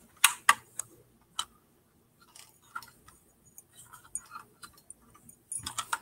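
Handling noise: a device being gripped and moved close to the microphone, giving irregular sharp clicks and taps with faint rustling between, denser in the first second and a half and again near the end.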